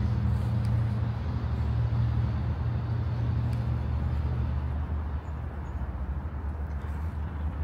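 Loud, steady low rumble of a vehicle engine running close by, over the general noise of city traffic.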